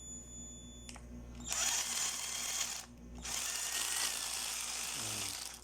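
Mitsushi 12-volt cordless drill driver running with a flexible shaft extension attached, the motor whirring in runs that are switched on and off, with a brief stop about three seconds in.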